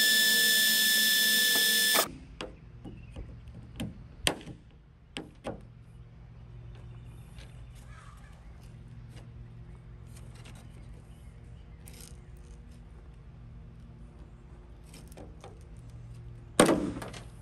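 Power drill running with a steady whine for about two seconds, drilling through the plastic retaining clips of a factory spoiler, then stopping abruptly. Scattered light clicks and taps follow as the clips are worked, and one loud knock comes near the end.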